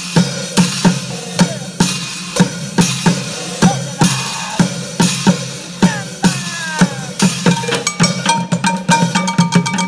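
Bucket drumming: two percussionists strike plastic buckets, upturned plastic water-cooler jugs and metal cooking pots with drumsticks in a steady, fast rhythm. Near the end the strokes come quicker, with ringing tones running under them.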